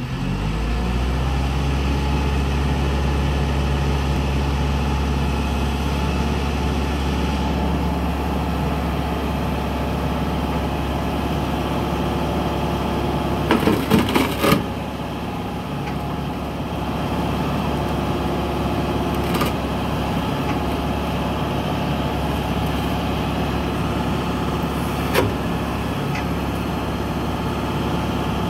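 Engine of the machine carrying a CID hydraulic tree shear running steadily as the shear cuts through a rubber truck tire. About halfway through comes a cluster of sharp cracks and pops as the blade bites through the tire casing, and two single sharp clanks follow later.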